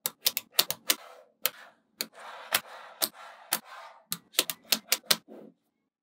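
Small magnetic balls snapping onto a block of magnetic balls: a quick, irregular series of sharp clicks with softer rattling between them.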